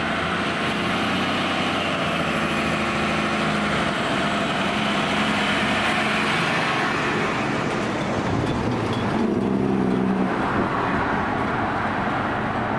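Fire engine and ladder truck driving past close by, their diesel engines running in a steady rumble that swells again about eight seconds in, over road and traffic noise.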